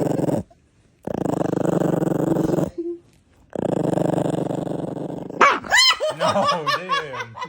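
Puppy growling over her bone in three long, low growls with short pauses between them, which is resource guarding. Near the end these give way to a quicker run of higher, wavering pitched sounds.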